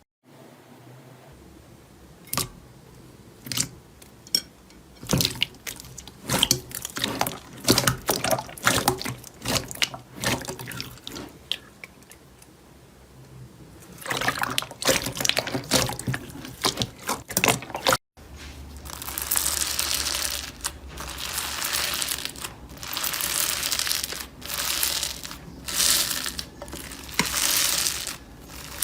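Slime being handled: sticky, wet clicks and pops, sparse at first and then quick and dense, followed by crackling. After a short break, wet squelching comes in repeated presses about once a second.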